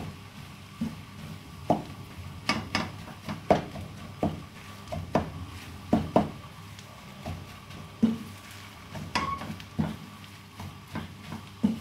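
Wooden spatula stirring food in a frying pan, knocking and scraping against the pan at irregular intervals, about one to two strokes a second, over a faint steady low hum.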